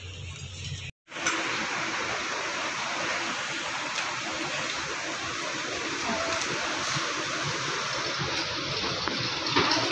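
Steady, even rushing noise like running water, starting abruptly after a brief cut-out about a second in.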